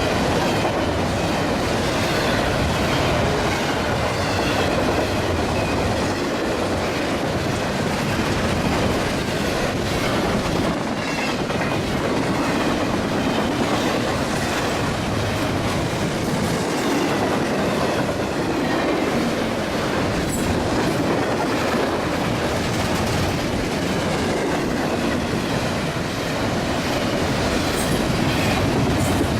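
A train's railroad cars rolling past, a steady rumble with steel wheels clacking over rail joints.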